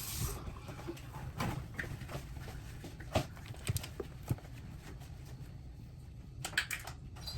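Running kitchen tap shuts off just after the start, then scattered light clicks and knocks at irregular intervals.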